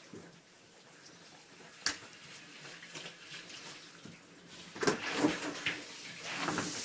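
Water splashing in a small bathroom during a dog's shower, with a sharp knock about two seconds in and louder splashing and clatter around five seconds in.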